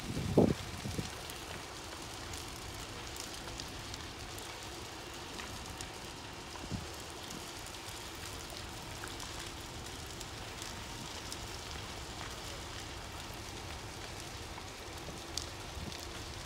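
Large building fire crackling steadily, a dense patter of small pops and cracks. A loud low thump about half a second in and a fainter knock near the middle.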